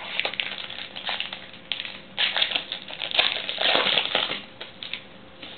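Trading-card pack wrapper crinkling as it is handled and torn open, an irregular run of crackles that is loudest about halfway through.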